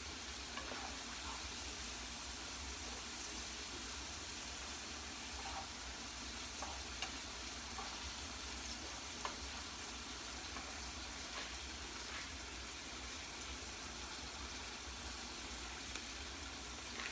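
Pork chops searing in a hot frying pan: a steady sizzle, with a few faint pops or clicks scattered through it.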